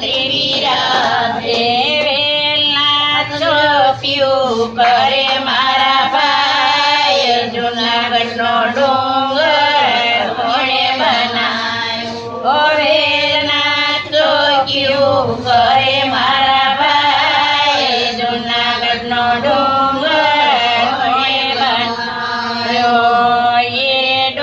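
Elderly women singing an old Gujarati devotional folk song (satsang geet) together, a continuous unbroken line of sung melody.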